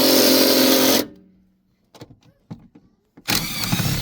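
Power tool with a 14 mm socket spinning out a seat-mounting bolt: a steady motor whine that stops abruptly about a second in. A few light metallic clicks follow, then the tool runs again near the end.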